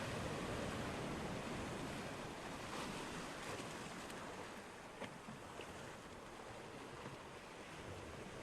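Ocean surf: a steady rush of waves that eases off over the first few seconds, with a couple of faint ticks about five seconds in.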